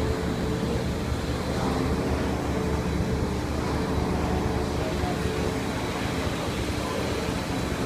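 Washing machine in its final spin cycle, running steadily with a low rumble and a constant hum.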